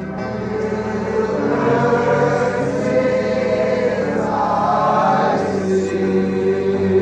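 Congregation singing together in long, held notes.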